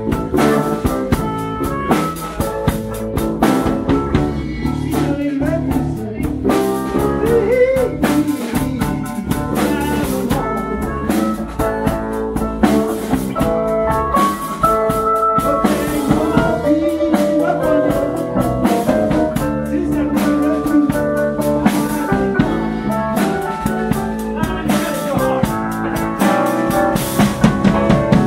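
Blues band playing live: drum kit, electric bass, organ and guitar, with notes bending up and down in the melody.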